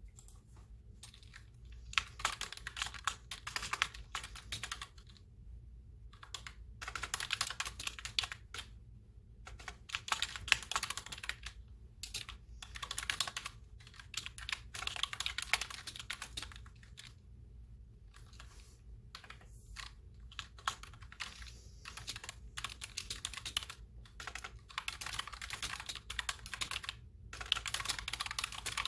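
Typing on a clicky computer keyboard: fast runs of key clicks in bursts of a few seconds, broken by short pauses.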